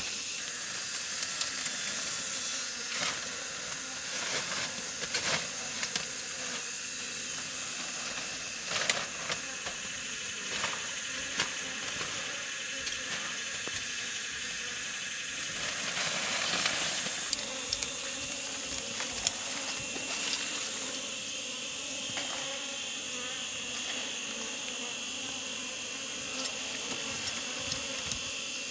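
Steady high-pitched chorus of insects, with scattered light clicks and knocks over it.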